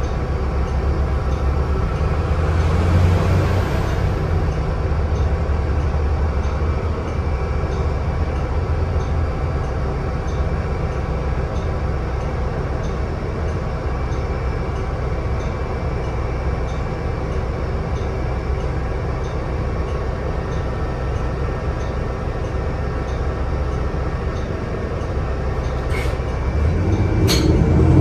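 Onboard a NovaBus LFS CNG city bus under way: its Cummins ISL-G 8.9-litre six-cylinder natural-gas engine drones steadily under road noise, heard from inside the cabin. Near the end come two sharp clicks, and the engine note rises as the bus picks up speed.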